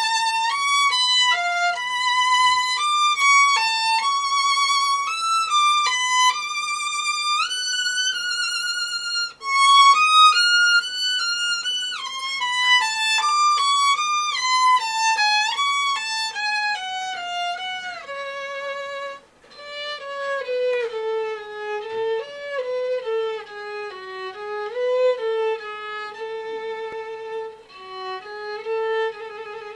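Solo violin playing a melody with vibrato, unaccompanied. It starts high in its range, pauses briefly about two-thirds of the way through, then carries on in a lower register.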